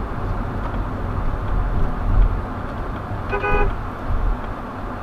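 A car horn gives one short toot about three and a half seconds in, over the steady low rumble of idling traffic, a honk at a car that is holding up the line at a green light.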